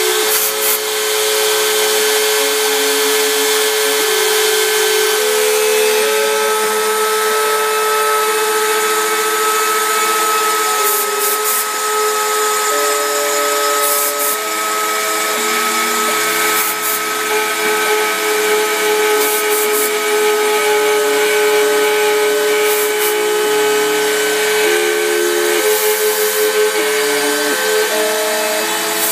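Homemade CNC router milling a pine board: a steady whine from the spindle motor under a set of tones that jump to a new pitch every second or so as the stepper-driven axes change speed and direction. Short bursts of cutting hiss come and go.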